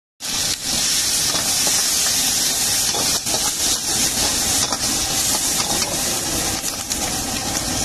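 Hot oil sizzling hard in a wok as chopped vegetables are stir-fried, with a metal ladle scraping and knocking against the wok a few times.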